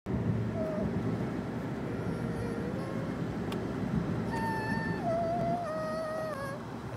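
Road and engine noise inside a moving car's cabin. From about four seconds in, a high, wavering tone rides over it and steps down in pitch.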